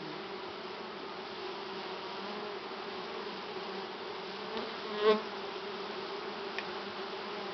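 Honeybee colony buzzing steadily from an open hive box, stirred up by a powdered-sugar dusting for mites. A single louder buzz briefly stands out about five seconds in.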